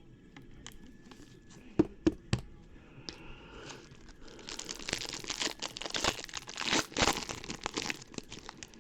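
Three sharp taps, then about four seconds of dense crinkling and tearing as a sealed trading-card pack's wrapper is torn open.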